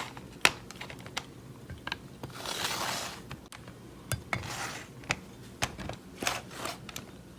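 Glass mason jars clinking and knocking as they are handled, with a few short scraping swells in between.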